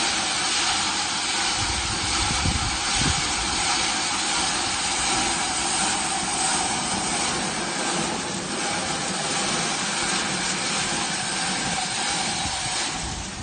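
Manual treadle rice thresher's wire-toothed drum spinning, with a steady whirring hiss as rice stalks are held against it and the grain is stripped off and thrown against the hood.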